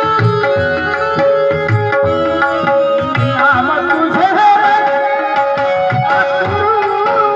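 Devotional song: tabla playing a steady rhythm under held drone tones, with a singer's voice coming in about three seconds in.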